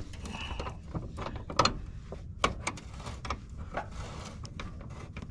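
Hand tools working a tight fastener under a vehicle: irregular metallic clicks and clinks, as of a socket ratchet, with a few sharper knocks.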